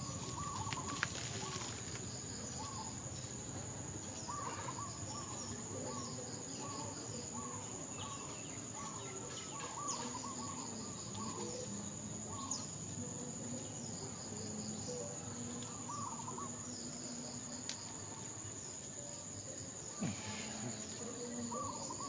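Insects trilling steadily at a high pitch, with short chirping calls repeating every second or two. A few brief clicks and knocks are heard as the bamboo trap is handled.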